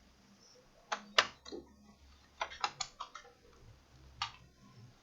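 Irregular sharp clicks and taps of plastic and small hard parts being handled while a laptop is taken apart, the loudest a little after one second in.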